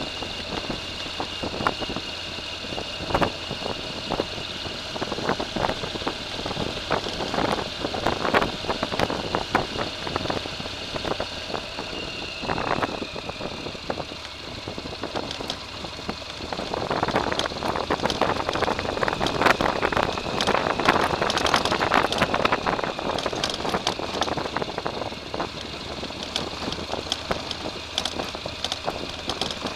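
A small vehicle's motor running over rough ground, with a steady high whine and many knocks and rattles. It grows louder and rougher for several seconds past the middle, then eases.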